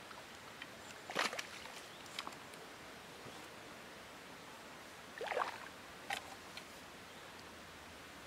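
A few short splashes of water, about a second in and again around five to six seconds in, over a faint steady background: a hooked bream splashing at the surface as it is brought in.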